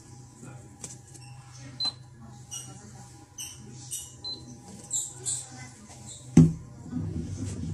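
Short high beeps from an induction hob's touch controls, once about two seconds in and again about four seconds in, over a low steady hum. Scattered clicks and handling noise, with a loud thud about six and a half seconds in.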